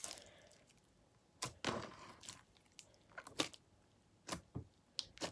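A pile of slime being mixed by hand: a string of short, irregular sticky pops and clicks with quiet gaps between them.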